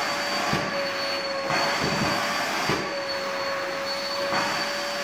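Vacuum cleaner running: a steady whine over the rush of air through the hose.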